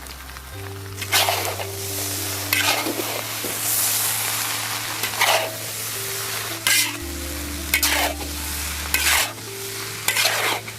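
Red sausages sizzling as they deep-fry in hot oil, stirred with about eight sharp strokes against the pan. Soft background music plays underneath.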